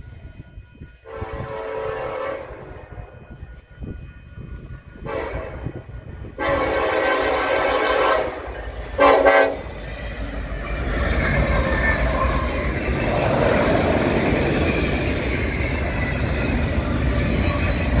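Nathan Airchime K5LLA five-chime locomotive horn sounding four blasts, three longer ones and then a short, loudest one, as the train approaches. The locomotive and freight cars then pass close by with a steady rumble and wheel clatter on the rails.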